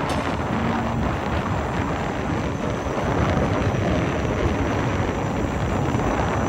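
Steady wind rush on the microphone mixed with a vehicle running at an even pace along a paved road.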